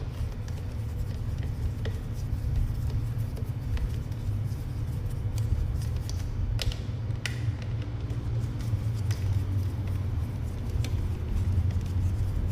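Small plastic clicks and taps from a security camera's housing cover being worked open by hand, heard over a steady low rumble.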